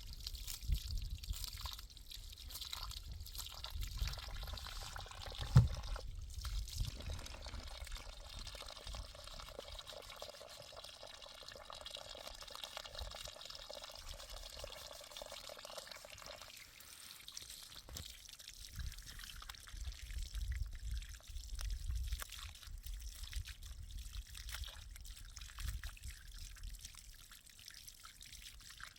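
Water pouring and trickling, with scattered knocks; a sharp knock about six seconds in is the loudest sound.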